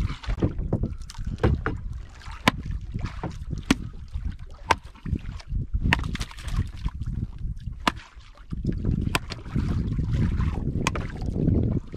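Sharp knocks and taps on a small wooden fishing boat at irregular intervals, roughly one a second, over a low rumble of wind and water, as a hooked barracuda is handled at the boat's side.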